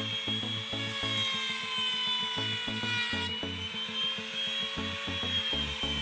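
Electric wood trimmer router running at high speed and cutting a profile along the edge of a wooden strip, a steady high whine that drifts a little in pitch as it cuts. Background music plays underneath.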